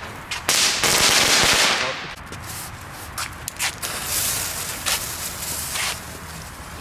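Small category 1 ground firework going off: a loud, dense crackling for about a second and a half, then a fainter hiss broken by scattered sharp cracks and pops.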